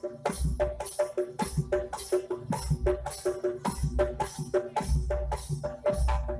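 Live jaranan gamelan music: pitched kettle gongs ringing a repeating two-note figure over drum strokes, metallic crashes about twice a second and deep thumps, in a fast, even beat.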